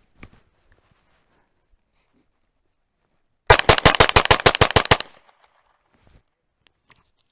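Ruger PC Carbine 9mm semi-automatic rifle fired as fast as the trigger can be pulled: a rapid string of shots, about ten a second, lasting about a second and a half, starting midway through. The carbine cycles the whole magazine without a malfunction.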